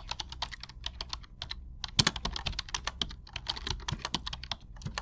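A rapid, irregular series of sharp clicks, several a second, over a low hum, cutting off suddenly at the end.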